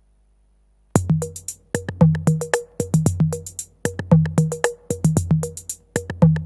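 Behringer RD-8 analog drum machine (an 808 clone) playing a minimal electro beat: after about a second of silence the pattern drops back in with long booming kicks, quick hi-hats and short pitched drum notes.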